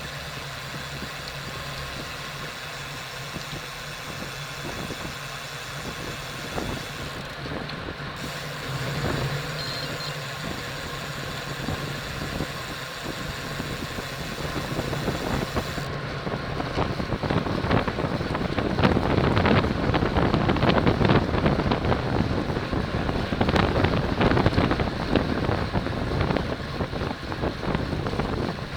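Wind rushing over the microphone with bicycle road noise during a criterium race, turning louder and gustier about halfway through.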